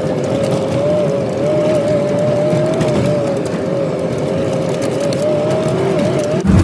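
A 4x4 driving over a dirt track, heard from inside the open cab: a steady running and rolling noise with a whine that wavers slightly in pitch. Just before the end the sound turns abruptly louder and deeper.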